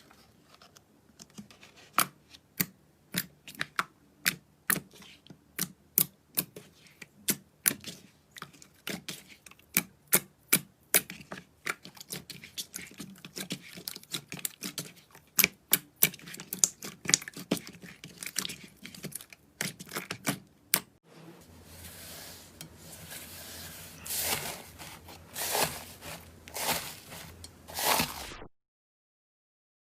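Slime being pressed and worked by hand, making a quick, irregular run of sharp clicks and pops. About 21 seconds in it changes to a steadier crackling hiss with a few louder swells, then cuts off abruptly near the end.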